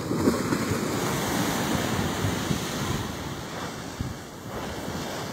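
Wind buffeting the microphone in low, fluttering gusts over the wash of surf breaking on a beach.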